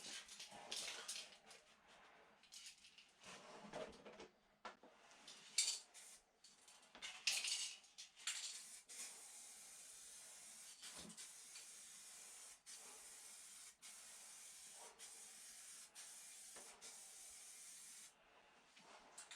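Spray paint hissing out in a few short bursts, then one long steady spray from about eight seconds in, broken briefly a few times, stopping near the end.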